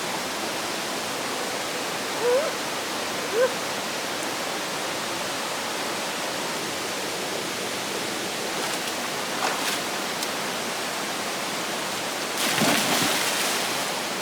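Mountain stream rushing steadily over rocks. Two short vocal sounds come early, and about twelve seconds in a louder rush of noise lasts about a second.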